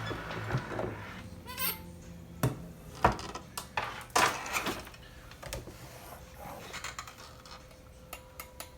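Scattered knocks and clinks of metal chainsaw parts and tools being handled on a workbench, with a brief squeak about one and a half seconds in.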